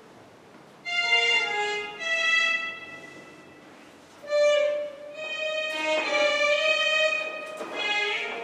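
Violin music: slow phrases of long held notes, with a quieter gap about three seconds in before the notes resume and are held longer.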